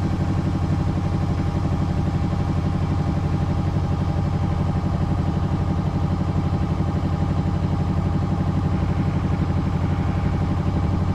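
A small sailboat's engine running steadily under way, with a fast, even chugging pulse that holds constant throughout.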